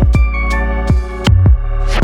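Background music with a deep bass, regular drum hits and a melody.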